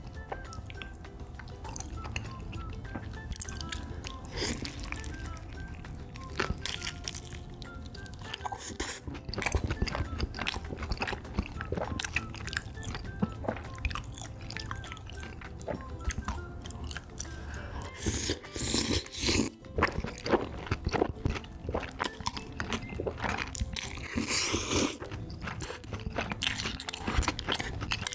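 Close-miked eating sounds of rosé tteokbokki and a corn dog: chopsticks stirring thick sauce, chewing and crunching, with louder wet slurps a little past the halfway point and near the end. Background music plays throughout.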